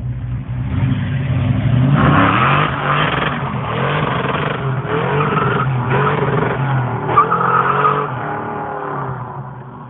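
A car doing a burnout: the engine revs up and down while the tyres squeal and skid in spells, and the sound dies away near the end.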